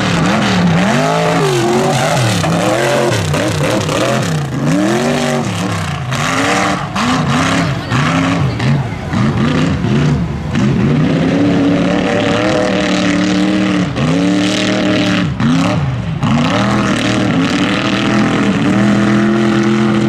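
Mud racing buggy's engine revving hard, its pitch swooping up and down about once a second as the throttle is worked. In the second half it holds higher and steadier, with a few more swoops before a long high pull near the end.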